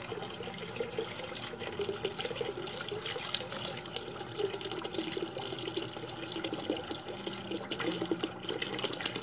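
Water pouring and gurgling unevenly out of a homemade automatic bell siphon's PVC drain pipe into the bucket below, as the grow-media bucket starts to dump and the siphon builds toward full discharge.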